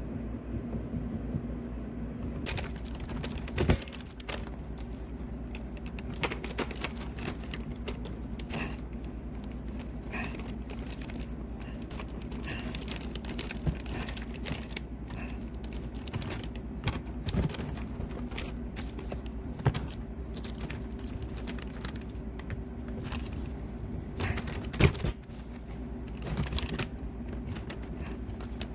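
Hand tools and small metal parts clinking and knocking during work on a dishwasher hookup, with two louder knocks, over a steady low hum.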